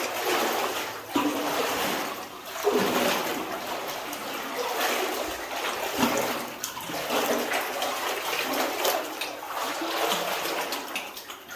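Water sloshing and splashing in uneven surges as people wade and crawl through deep, muddy water in a flooded mine tunnel.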